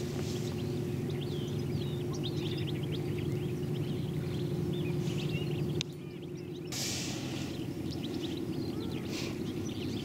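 Small birds chirping and twittering in quick short calls over a steady low hum. The chirps drop out for about a second just past the middle, then resume.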